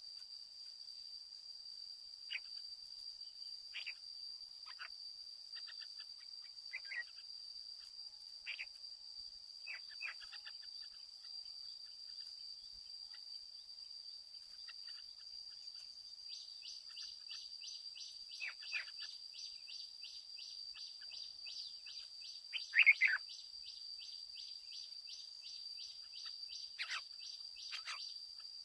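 Red-whiskered bulbul giving short scattered chirps and whistles, the loudest a brief burst of calls about 23 seconds in. Underneath is a steady high-pitched insect drone, and about halfway through a rapid pulsing insect trill of about four pulses a second starts up.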